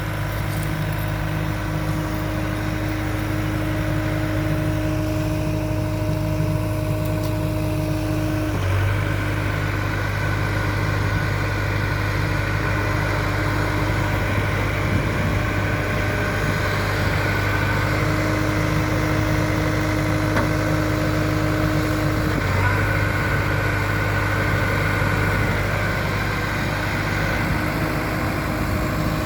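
JCB 3DX backhoe loader's diesel engine running steadily, with a higher steady note that breaks off and comes back a couple of times.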